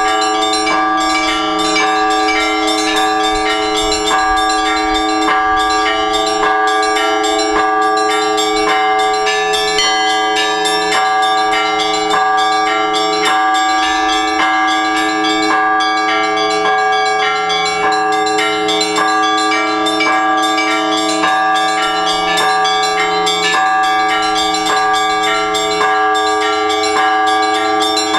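Orthodox church bells ringing together: many bells of different pitch are struck in a rapid, steady pattern, their tones ringing on over one another without a break.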